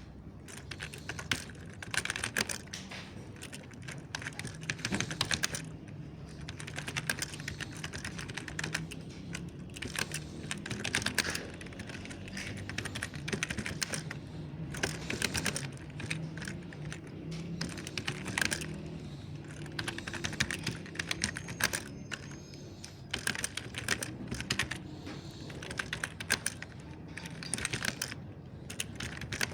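Typing on a mechanical keyboard: quick runs of soft key clicks in bursts, with short pauses between them.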